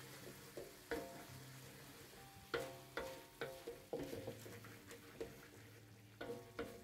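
Chili paste sizzling softly in a wok while a wooden spatula stirs and scrapes through it. Soft background music of plucked notes plays over it.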